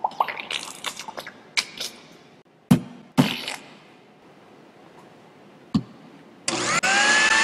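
Cartoon sound effects: a quick run of short pops and plops, then three separate thuds, then a blender motor starting about two-thirds of the way in and running loud with a whine that rises and then holds steady.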